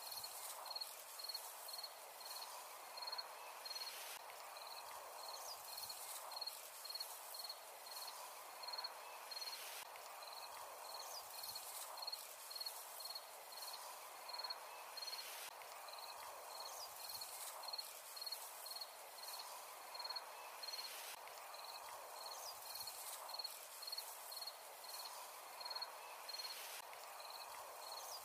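A cricket chirping in a steady, even rhythm, about one and a half short high chirps a second, over a faint hiss of outdoor ambience.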